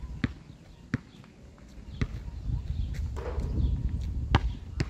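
A basketball bouncing on a hard court: a handful of single sharp bounces at uneven intervals, with a short rattling clatter a little after three seconds in.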